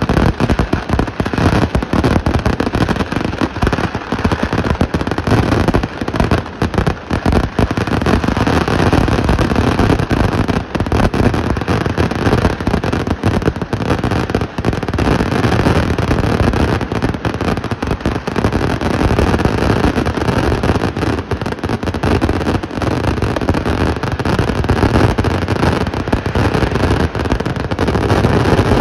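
A Kerala temple-festival vedikettu fireworks barrage: firecracker blasts go off in such rapid, dense succession that they run together into one unbroken, loud din.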